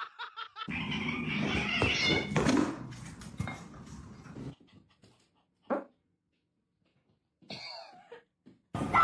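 A dog making sounds over a noisy few seconds, then near quiet with a couple of short sounds.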